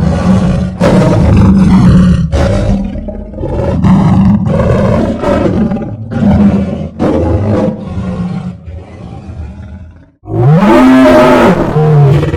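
Lion roar sound effect: a run of short, loud, growling roars, then after a brief break near the end one long roar that rises and falls in pitch.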